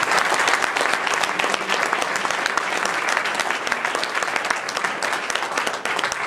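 Audience applauding: a dense stream of hand claps that slowly grows quieter.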